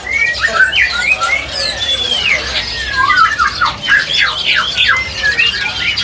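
Several caged songbirds calling and singing at once: a busy, unbroken mix of quick whistles and chirps, many sliding up or down in pitch and overlapping one another.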